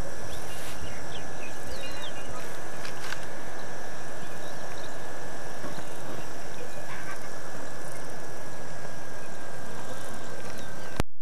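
Steady outdoor background noise with a thin, steady high whine and a few faint bird chirps here and there. The sound drops out for a moment at the very end.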